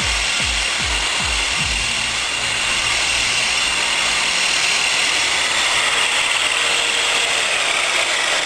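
Angle grinder running under load, a steady hiss with a high whine that drops slightly in pitch near the end. Background music with a thumping beat plays underneath during the first couple of seconds.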